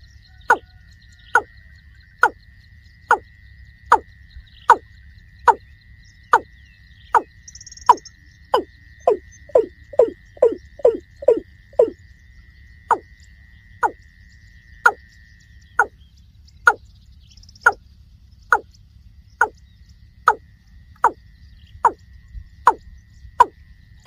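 Watercock calling: a long series of sharp, falling 'kok' notes, about one a second, quickening to two or three a second about nine seconds in and then slowing again. A faint steady high whine runs underneath, breaking off for a few seconds near the two-thirds mark.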